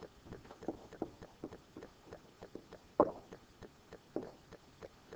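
Stylus tapping and scratching on a tablet during handwriting: a quick, uneven run of small clicks, with one louder tap about three seconds in.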